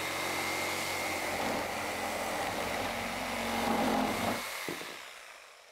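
Reciprocating saw cutting through the end of a maple slab, running steadily, then fading away over the last second or so.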